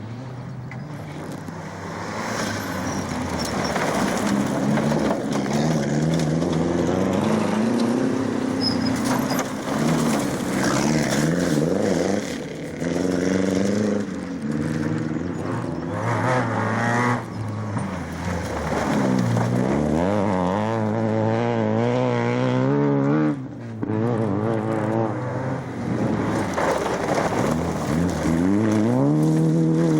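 Rally car engine accelerating hard on a special stage, its pitch climbing through each gear and dropping at every change, with a few sharp lifts off the throttle.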